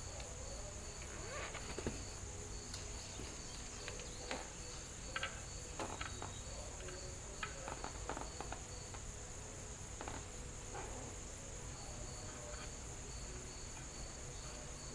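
Crickets and other insects chirping in a steady, evenly pulsing chorus, with a few faint scattered clicks and knocks.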